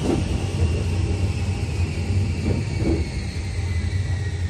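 Ex-Tokyu 8500-series electric commuter train running, heard from inside the cab: a steady low hum with a faint high motor whine gliding slowly downward, and a couple of wheel knocks over rail joints about two and a half and three seconds in.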